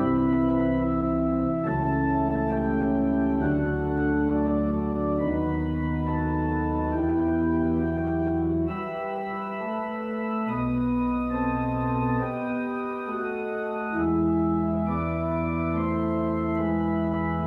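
Organ playing slow, held chords that change every second or two. The deep bass notes drop out briefly twice in the middle.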